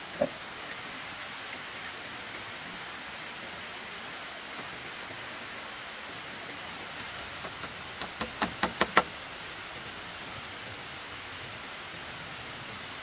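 A steady hiss of background noise, with one sharp knock just after the start and, about two-thirds of the way in, a quick run of about six sharp knocks, faint at first and growing louder.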